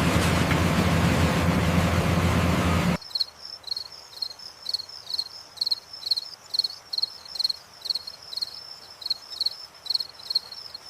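A loud, steady rushing noise with a low hum cuts off suddenly about three seconds in. Crickets then chirp in a steady rhythm, about two chirps a second.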